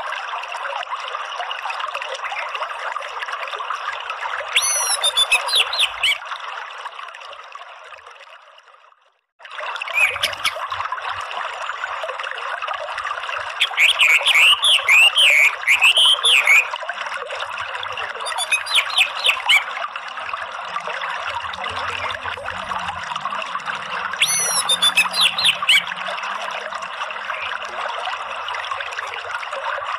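Orange-headed thrush calls over running stream water: bursts of rapid, squeaky chattering notes (the ngeriwik call) every few seconds, the longest about halfway through. The water sound fades out about eight seconds in, goes silent briefly, then cuts back in.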